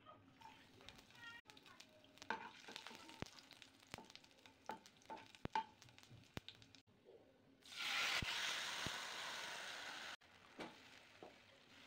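Cumin, garlic and dried red chillies sizzling in hot oil in a non-stick pan, with scattered pops and crackles. About eight seconds in, a much louder hiss starts as the white kadhi liquid hits the hot tempering. It lasts about two seconds and cuts off abruptly.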